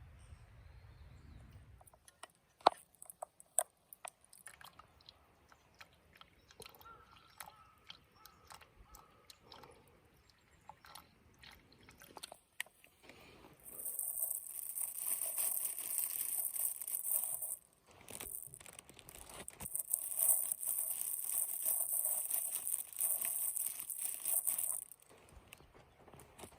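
A few scattered sharp clicks and knocks, then a long stretch of loud crunching, crinkling noise that pauses briefly about halfway and starts again.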